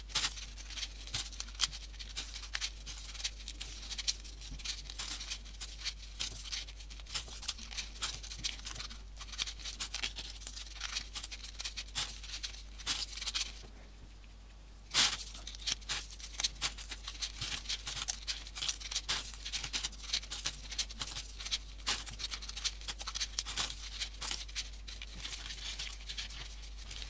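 Folded paper modular-origami pieces rustling, crinkling and clicking as they are pushed into place one after another on a paper model: many small, quick paper taps and rubs. The sound drops out for a moment near the middle and comes back with a sharper click, over a faint steady low hum.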